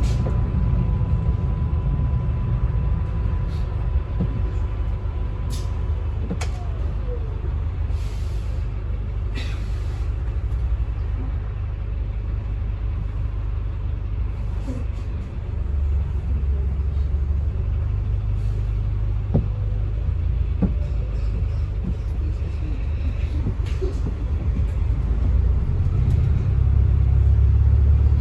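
Inside a double-decker bus on the move: a steady low rumble of engine and road, with scattered rattles and clicks. There are brief high hisses of air, the bus's air system venting.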